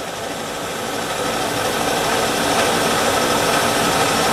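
A machine motor running steadily with a hum and a hiss, growing somewhat louder over the first couple of seconds and then holding steady.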